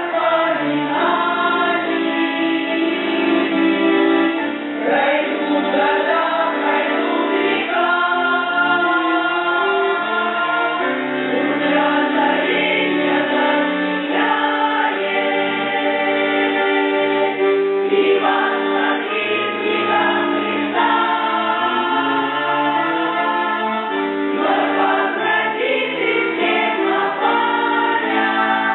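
A Russian folk choir singing, many voices in harmony with long held notes.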